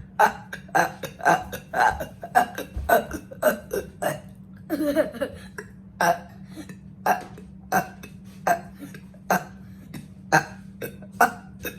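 A person burping on command, one short burp after another: about two a second for the first four seconds, a longer drawn-out burp about five seconds in, then roughly one a second.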